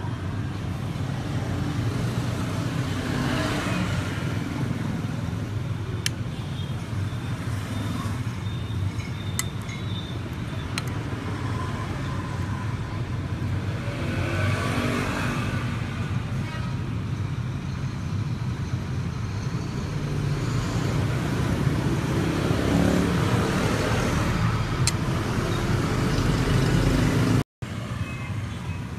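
Steady low rumble of road traffic going past, with a few light sharp clicks.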